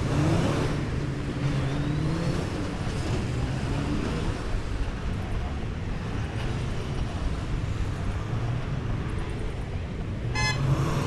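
Road traffic: motor vehicles passing with a steady engine and tyre rumble, with a brief high-pitched tone near the end.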